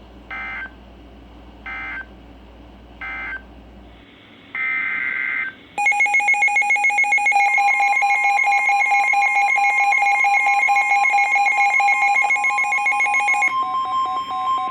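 Emergency Alert System signalling: three short warbling SAME data bursts (the end-of-message code), then a longer data burst, then a loud, rapidly pulsing two-tone attention signal joined by a steady single-pitch NOAA Weather Radio alarm tone, which keeps sounding alone after the pulsing stops near the end.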